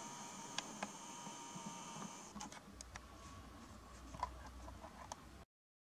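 Faint background ambience: a thin steady high whine and a low hum that fade out after about two seconds, with a few scattered faint clicks. It drops to dead silence near the end.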